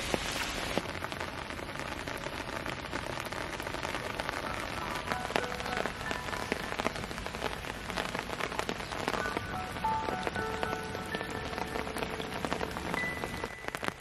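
Rain falling on puddles and wet ground: a steady hiss dotted with many small drop ticks.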